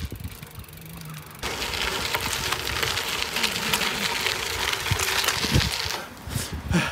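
Bicycle tyres rolling over a paved trail littered with twigs and dry leaves: a steady hiss full of small clicks and snaps. It starts about a second and a half in and stops about a second before the end.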